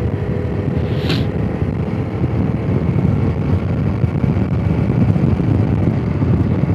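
Honda CRF250 Rally's single-cylinder engine running under way, under a steady low rumble, with a brief hiss about a second in.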